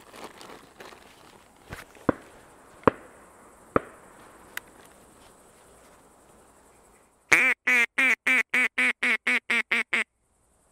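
A quick run of about a dozen loud duck quacks, roughly four a second, starting about seven seconds in. Before it, faint rustling and a few sharp knocks from the camera being handled.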